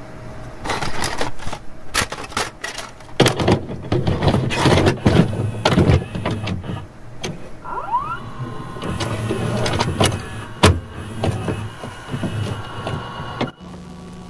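VCR mechanism loading and playing a videotape: a run of clicks and clunks over a low motor hum, with a short rising whine about eight seconds in. Near the end it gives way suddenly to a steady hum and tape hiss.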